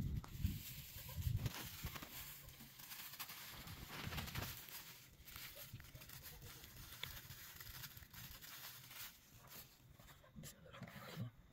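Faint rustling and crinkling of a thin plastic bag being handled and emptied into a bowl, with irregular small clicks.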